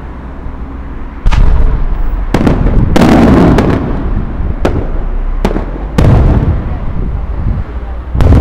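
Aerial firework shells bursting overhead: a string of sharp bangs, about seven in all, some with rumbling echoes, and a longer crackling burst around three seconds in.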